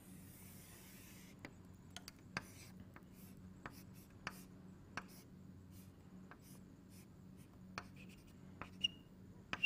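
Faint scratching and tapping of a pen drawing a diagram by hand, with a couple of short squeaks near the end, over a low steady electrical hum.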